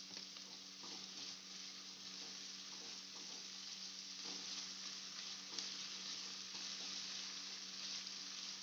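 Chopped onion frying in oil and butter in a kadai over a high flame: a steady sizzle with a few faint crackles.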